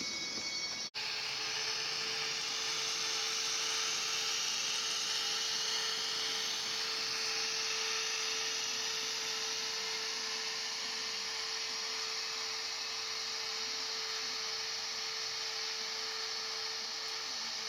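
BEMO HOm-scale model Rhaetian Railway locomotive running through the station, its ESU LokSound decoder playing locomotive sound over the motor and wheel noise: a steady whine over an even hiss. The whine stops shortly before the end.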